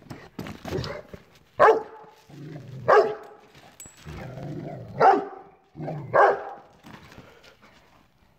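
Rottweiler barking: four loud barks, one every second or two, with quieter, lower sounds between them.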